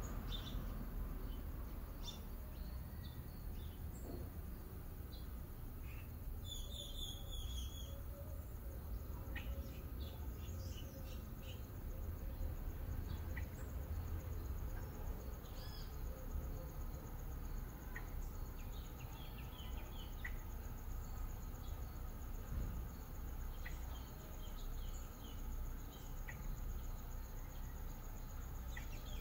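Yard ambience: scattered bird chirps, with a rapid chirping trill about seven seconds in, and a faint steady high insect buzz over a low rumble.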